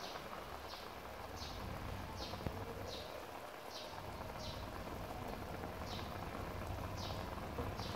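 Liquid simmering in a wok, a soft steady hiss, over a low hum. Above it, an animal's short, high, falling chirp repeats roughly every three-quarters of a second.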